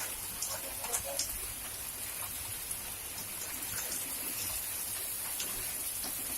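Heavy rain falling: a steady hiss with scattered sharp ticks of drops and drips.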